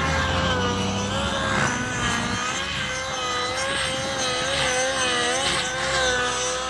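Nitro-engined radio-controlled helicopter (Goblin Black Nitro) flying: a steady engine and rotor whine whose pitch wavers up and down as it manoeuvres.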